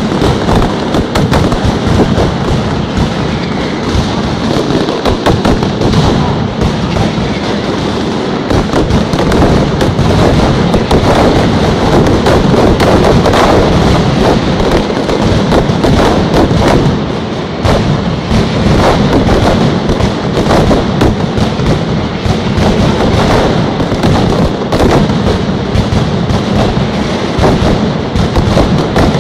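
Mascletà firecrackers (masclets) going off in a dense, unbroken barrage of bangs, too fast to count, a little heavier in the middle with a brief let-up a little past halfway.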